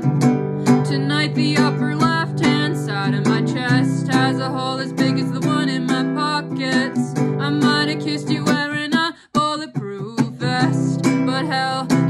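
Acoustic guitar strummed in a folk-punk song, with a woman's voice singing along. The strumming drops out briefly about nine seconds in, then resumes.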